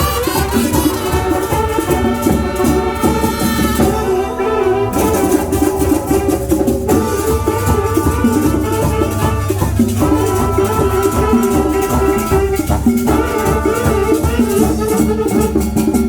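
Marching band of horns and drums playing a Latin dance tune: sustained brass chords over a steady, dense drum beat with shaker-like percussion, and the horns break off briefly about four seconds in.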